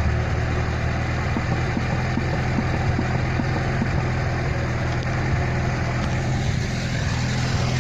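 Car engine running with a steady low hum, with a few faint short knocks over it, the kind of rear-suspension knock the car is being checked for.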